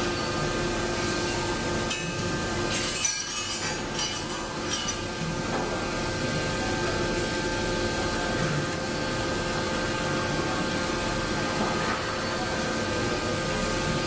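Factory machinery running steadily: a continuous mechanical hum with several steady tones, and a short clinking rattle about three seconds in.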